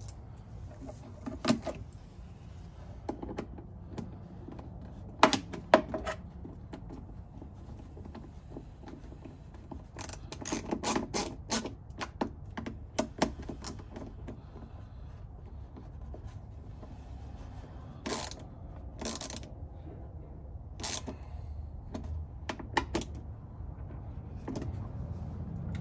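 Scattered clicks, knocks and rattles of hard plastic as speaker wire is pushed and worked into the plastic wire track of an Indian Challenger saddlebag lid, with a quick run of clicks near the middle and two sharp clicks a little after five seconds in. A low steady hum runs underneath.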